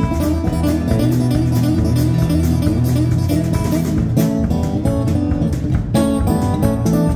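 Live band playing an instrumental passage: two acoustic guitars picking quick lead lines and strumming over upright bass and drums.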